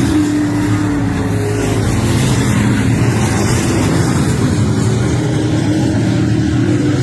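Race car engine running steadily at speed, a loud continuous engine note that wavers only slightly.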